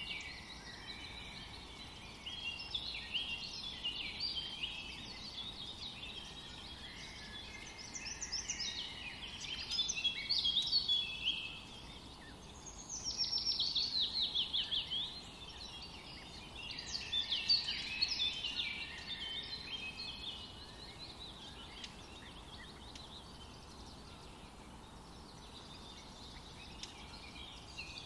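Birds chirping and singing, several songs overlapping, with a rapid run of falling notes about thirteen seconds in.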